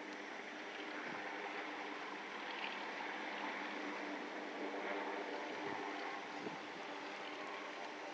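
Steady background noise with a faint, steady hum underneath.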